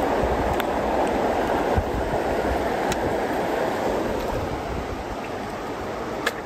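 Steady rush of fast-flowing floodwater, with a sharp click near the end.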